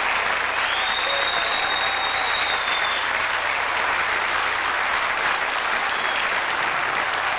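Theater audience applauding steadily, with one long whistle from the crowd that rises about half a second in and holds for a couple of seconds.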